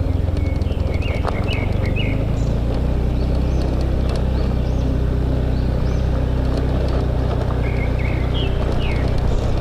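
Motorbike engine running steadily while riding, with wind and road noise. Birds chirp over it about a second in and again near the end.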